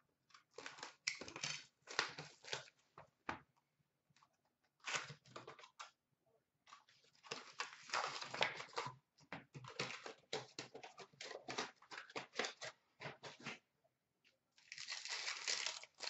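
Packaging of a hockey card box being torn and crinkled open by hand: a run of short rustles and rips, busiest in the middle, with one longer tearing noise near the end.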